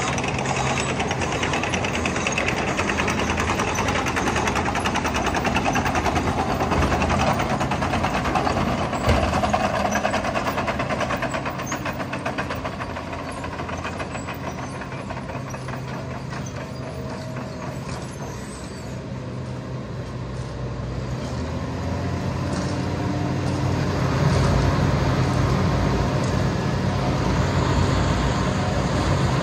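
Heavy diesel road-works plant running: a Wirtgen cold planer and a JCB backhoe loader with a steady engine drone. The noise eases off through the middle and grows louder again from about 24 seconds in.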